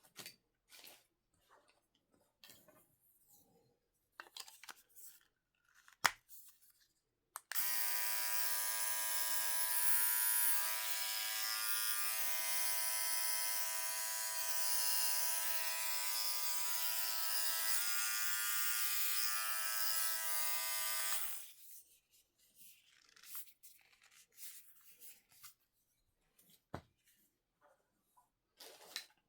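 Cordless electric body-hair trimmer (MaxGroom groin trimmer) switched on, its motor and cutting blade running with a steady buzz for about thirteen seconds, then switched off. Light clicks and handling noises come before and after it.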